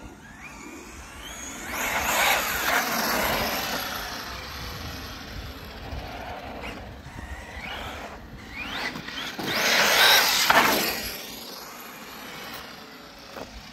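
Electric 8S Mojave RC truck speeding past on asphalt twice, running at a 50% throttle limit: the motor's whine and the tyre hiss swell and fade about two seconds in, then again more loudly about ten seconds in, with the pitch gliding up and down.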